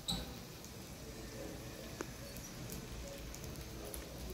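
Steady hiss of a gas burner inside a small metal tandoor box oven, with a single sharp click about two seconds in.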